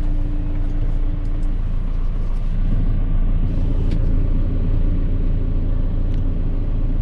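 Tractor engine running steadily, a low rumble.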